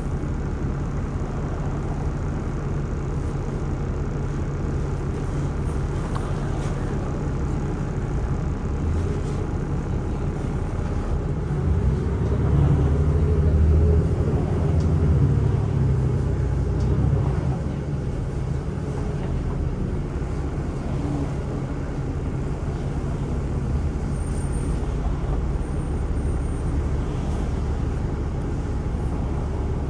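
City bus in motion, heard from inside: a steady low rumble of engine and road, rising louder for a few seconds around the middle.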